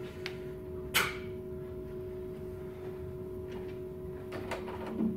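Steady electrical room hum, broken by one sharp knock about a second in and a few light clicks near the end, as a wooden-backed whiteboard eraser is set down on the whiteboard's tray.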